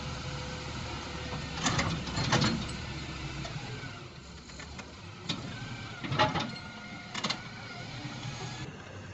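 Daewoo Solar 130W wheeled excavator working: its diesel engine runs steadily, easing off after about four seconds, while the bucket digs into rocky soil. Several loud clanks and scrapes come in two groups, one about two seconds in and one between five and seven seconds.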